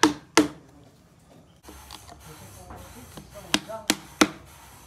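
Hammer striking a steel chisel cut into teak wood, sharp knocks with a short ring. There are two quick blows at the start, then after a pause three more blows in quick succession near the end.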